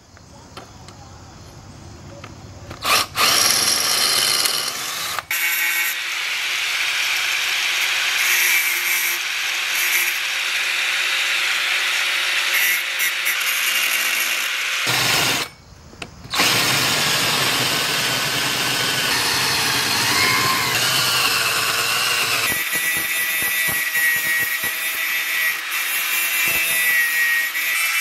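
Angle grinder with a cutting disc running and cutting into a sheet-metal battery case. It comes in a few seconds in, cuts off for about a second midway, then carries on, with a ringing whine in the later part.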